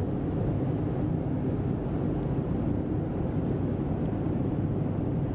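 Steady cabin noise of a Boeing 787-9 in flight: a constant low rumble of engines and airflow heard from inside the cabin.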